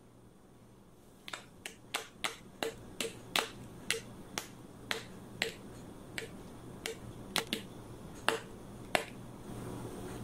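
A fork or utensil clicking against a plastic plate while eggs are beaten, about twenty sharp, irregular clicks at roughly two to three a second, starting about a second in and stopping near the end.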